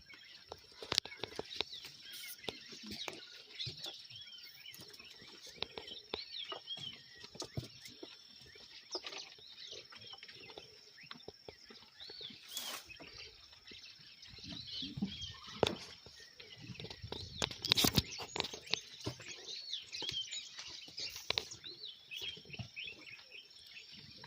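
Small birds chirping and twittering over a steady high-pitched whine, with scattered clicks and knocks. A louder stretch of rustling and handling noise comes about two-thirds of the way through.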